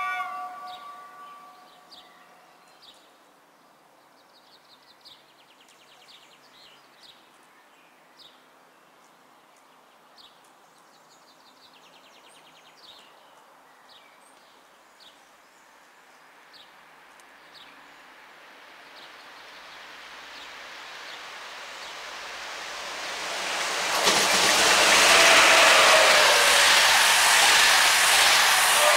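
Birds chirping faintly beside quiet tracks, then a locomotive-hauled PKP Intercity passenger train approaching, growing steadily louder, and passing close with the loud rush and clatter of its coaches over the last five seconds. A fading held chord of music ends in the first two seconds.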